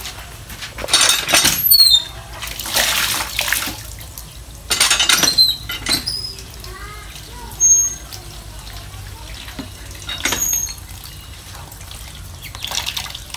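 Water gushing from a hand-operated cast-iron pitcher pump into a plastic basin of moringa leaves, coming in several surges about a second long, with splashing as the leaves are rinsed by hand.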